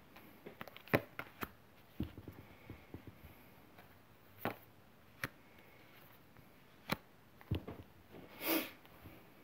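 Faint, scattered clicks, taps and rustles of tarot cards being handled and laid down, with a slightly longer rustle about eight and a half seconds in.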